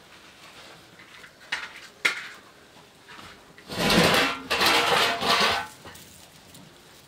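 Two sharp knocks, then about two seconds of loud clattering and scraping in three surges, from cookware and kindling being handled at a wood-fired clay stove.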